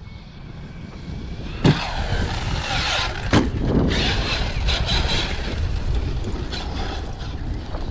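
Large 8S electric RC monster truck driving hard, a rush of motor and tire noise building up about a second in. Two sharp thuds come about a second and a half apart.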